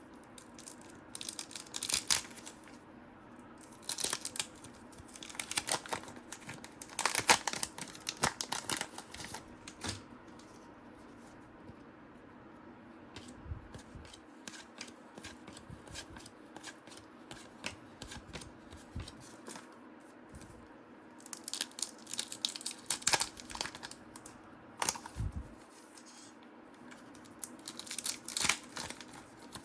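Trading card packs being torn open and their wrappers crinkled, in two spells of tearing and rustling separated by a quieter stretch in the middle.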